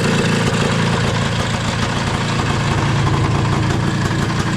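Motorcycle engine idling steadily on a freshly fitted Keihin PWK 32 carburetor.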